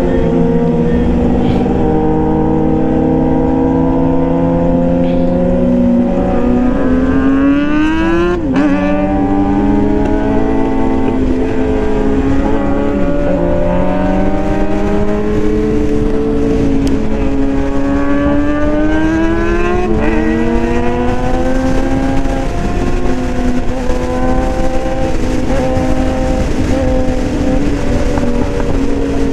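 Suzuki GSX-R 750's inline-four engine pulling at freeway speed. Its pitch climbs slowly and drops sharply at upshifts about eight and twenty seconds in, over a steady rush of wind.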